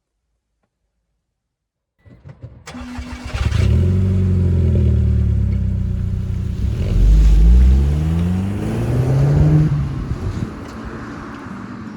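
A car engine starting about two seconds in, then being revved up and down several times before settling to a lower, steadier run near the end.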